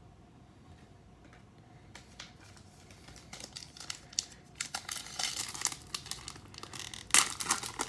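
Crinkling and tearing of a trading-card pack wrapper being handled and ripped open, starting about two seconds in and growing louder, with the sharpest crackles near the end.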